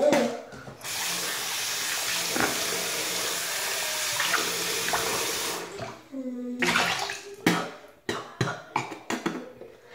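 Bathroom sink faucet turned on and running in a steady stream for about five seconds, then shut off, during rinsing after toothbrushing. A run of short knocks and clatters follows near the end.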